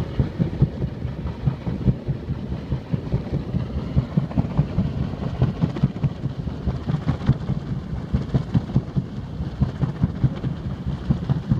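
Wind buffeting the phone's microphone: a loud, low, irregular rumble.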